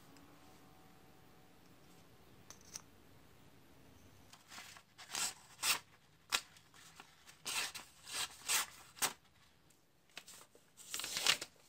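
Homemade folding knife, its blade made from an old scissor blade, slicing through a sheet of paper in a series of quick, sharp cuts: a paper-cutting test of the edge. The cuts start about four and a half seconds in, after a quiet stretch with one faint click.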